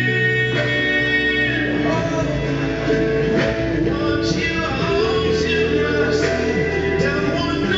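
A song with a singing voice and guitar, played over the ice rink's sound system as the skaters' program music.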